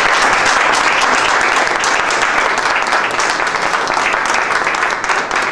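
A roomful of people applauding, steady throughout and easing slightly near the end.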